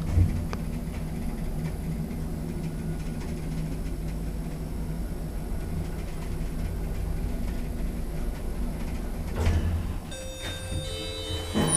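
Lift car running with a steady low hum, then a knock about nine and a half seconds in as it stops. A few short steady tones and another knock follow near the end as it arrives.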